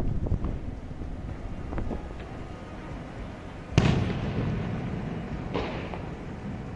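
Fireworks bursting: a few small pops, then one sharp loud bang near the middle that rolls away in a long echo, and a weaker burst about two seconds later.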